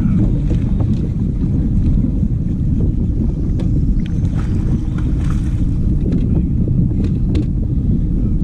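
Steady wind noise on the microphone, with a few faint light knocks now and then.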